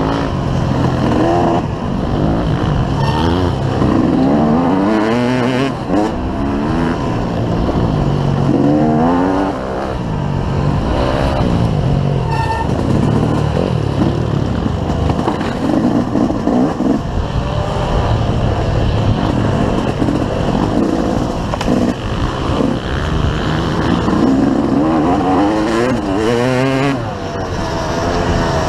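Off-road motorcycle engine heard from on board, revving up and dropping back again and again as the rider accelerates and shifts through the gears, with wind rushing over the microphone.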